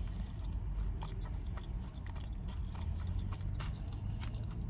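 A person chewing a mouthful of shrimp gyro close to the microphone, with scattered small mouth clicks over a steady low hum.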